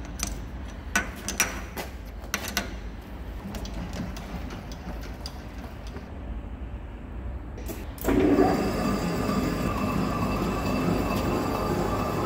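A few sharp metallic clicks and knocks as a cutting tool is set and the tool post tightened, then, about eight seconds in, a large engine lathe comes in suddenly, spinning the heavy suspension strut barrel and running steadily with a held whine.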